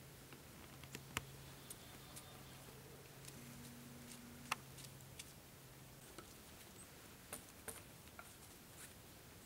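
Near silence, with a faint low hum that stops about six seconds in and a scattering of faint, short clicks.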